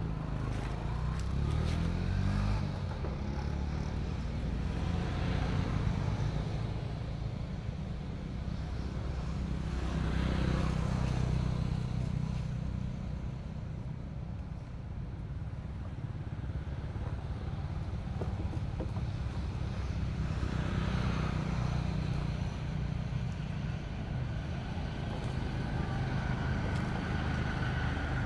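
Low rumble of motor vehicles passing, swelling and fading several times.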